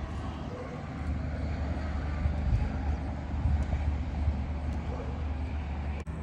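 Steady low engine rumble in the background, broken by a brief dropout near the end.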